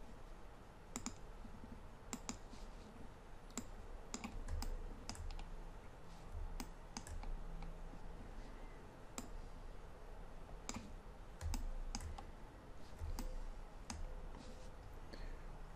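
Faint, irregular clicks of a computer mouse, a dozen or so scattered through, with a few soft low thumps.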